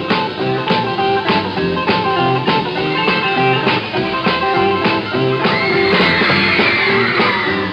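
Rock and roll band playing an instrumental break, with electric guitar over a fast, steady drum beat. About five and a half seconds in, high wavering squeals rise over the music and run on to the end.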